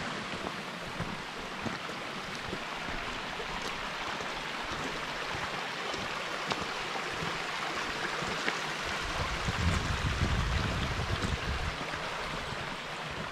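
A rocky mountain stream rushing and splashing over stones in small cascades, as a steady hiss. A low rumble joins in for a couple of seconds about ten seconds in.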